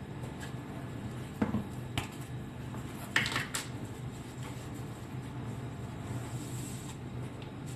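Kitchen containers and utensils being handled: a few light knocks and a short clatter, over a steady low hum.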